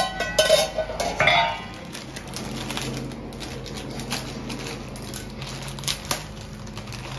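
A metal pan lid clatters as it is set down, several loud knocks in the first second and a half. Then comes the crinkling and tearing of a plastic instant-ramen packet being opened, in sharp scattered crackles over a low steady hum.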